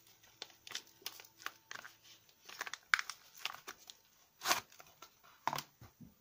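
Paper wrapper of a bar of soap being unfolded and pulled off by hand: a run of short crinkles and rustles, with the loudest crackles about halfway through and again near the end.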